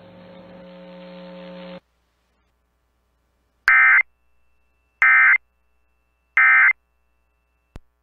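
Emergency Alert System end-of-message data tones: three identical short, harsh electronic data bursts about a second and a half apart, marking the end of the AMBER Alert test broadcast. Before them, a faint steady hum cuts off about two seconds in.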